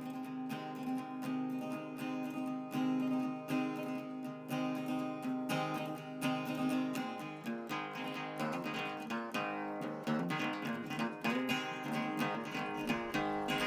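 Background music: an acoustic guitar strumming chords in a steady rhythm, with a deeper low part coming in near the end.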